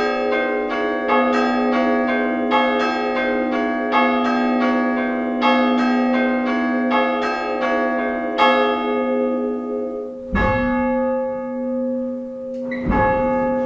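Dead-hung church bells chimed by an Ellacombe apparatus: hammers strike the stationary bells one after another, about two strikes a second, in a steady round. One bell's hammer is faulty. About two-thirds of the way through, the round stops and the bells hum as they die away, with two more single strikes near the end.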